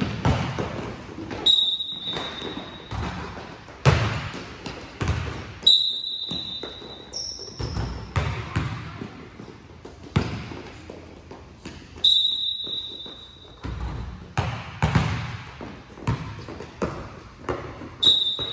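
Several basketballs bouncing and thudding on a hardwood gym floor, irregular and overlapping, echoing in a large hall. A brief high squeak sounds about four times.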